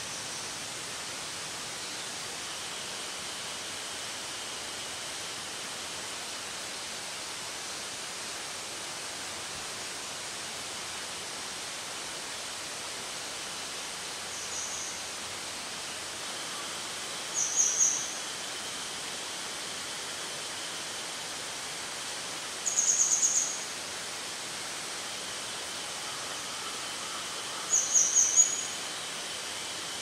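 Steady outdoor hiss, with a bird's short, very high trilled call four times, each lasting under a second; the first is faint, and the later three are the loudest sounds.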